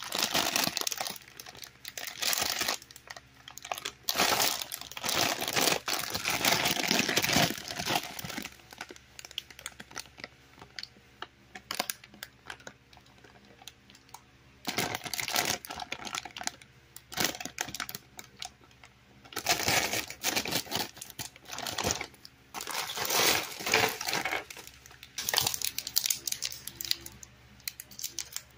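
Plastic candy packaging crinkling as it is handled, in irregular bursts with quieter pauses between. Near the end, it is the thin wrapper of a single wrapped candy bar crinkling between the fingers.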